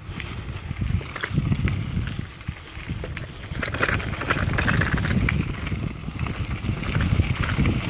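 Bicycle riding over a gravel dirt track: tyres crunching on loose stones with scattered clicks and rattles, louder from about halfway in, over a low rumble of wind on the microphone.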